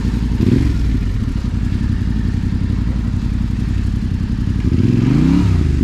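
Motorcycle engine running at a low, steady idle, revving up briefly about half a second in and again near the end.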